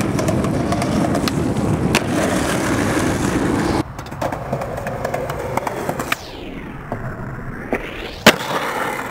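Skateboard wheels rolling loudly over rough pavement. After a cut, the rolling is quieter with a few light clicks, then comes a snap of the board's tail and, a moment later, a louder crack as the board lands, near the end.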